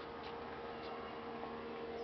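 Outdoor background noise: a steady hum with a few faint, short high chirps.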